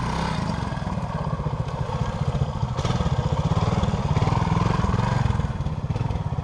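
Vintage trials motorcycle engine running at low, varying revs as it is ridden slowly over rocks. It grows louder about halfway through as the bike passes close by.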